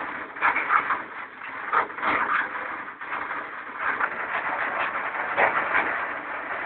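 Steady rain hiss, broken by several sharp taps at irregular times as drops strike the window ledge in a brief thunderstorm.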